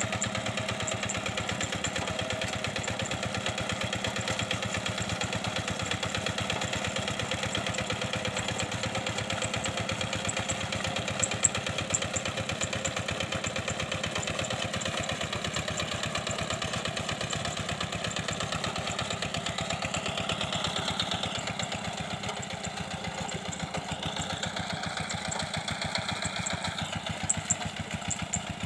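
Single-cylinder diesel engine of a two-wheel hand tractor running steadily under load as it ploughs a flooded rice paddy. There are a couple of brief knocks, about 11 seconds in and near the end.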